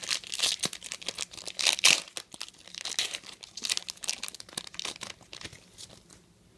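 A trading-card pack's wrapper being torn open and crinkled in the hands, with dense crackles and rips that are loudest about two seconds in and thin out near the end.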